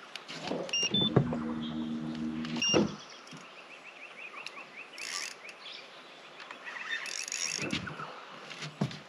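Spinning reel being wound in during a lure retrieve, giving a fast, even ticking for several seconds. Before it comes a low steady hum lasting about a second and a half, which ends in a knock.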